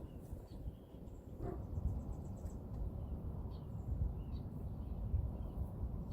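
Outdoor ambience: a low, uneven rumble with faint, scattered high-pitched chirps.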